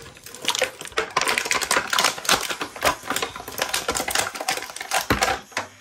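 Toy packaging being handled and opened to free an action figure: rapid, irregular crackling and clicking of plastic and cardboard that stops near the end.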